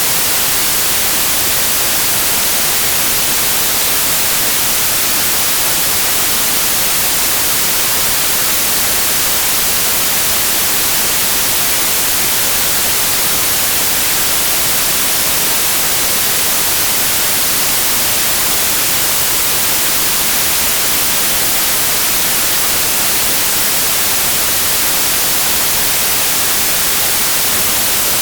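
Steady, loud white noise: an even hiss with no pattern or events, used to mask tinnitus.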